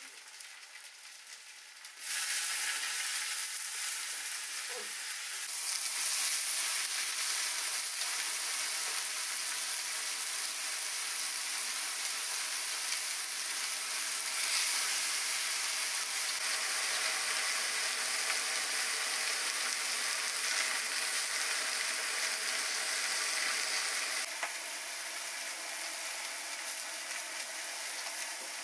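Wild mushroom pieces frying in hot oil in a metal pan, a steady sizzle that jumps up abruptly about two seconds in as they are stirred, easing a little near the end.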